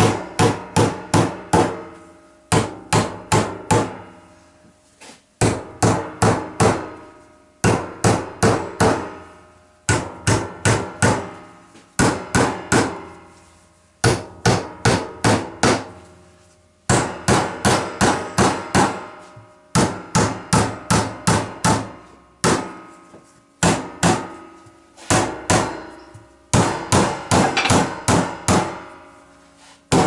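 Hammer driving nails into a timber frame: runs of several quick blows, about three or four a second, with short breaks between runs, each blow ringing briefly.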